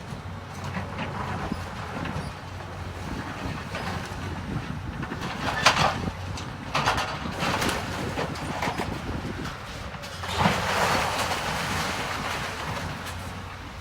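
A demolition machine's engine runs steadily while a building is torn down, with cracks and crashes of breaking wall material about six and seven seconds in. About ten seconds in comes a longer, louder rush of falling debris.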